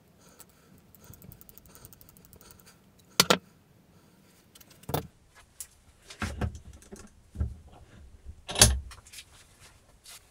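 Metal clinks and knocks of an old hand drill being handled and clamped into a cast iron bench vise, starting with a light fast ticking and ending in several sharp knocks, the loudest about eight and a half seconds in.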